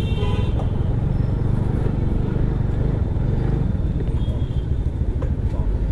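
Motor scooter running at low speed as it pulls over, with a steady low rumble of wind on the microphone and street traffic around.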